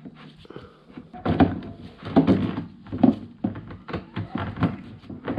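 Irregular knocks and clunks of a new fuel pump being handled and seated in a motorcycle fuel tank, about five strokes spread over a few seconds.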